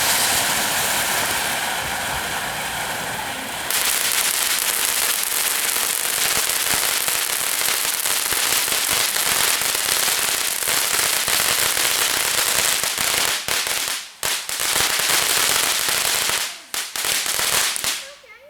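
Consumer firework spraying with a dense, continuous crackle. It changes to a fuller crackle about four seconds in, falters twice near the end, then cuts off.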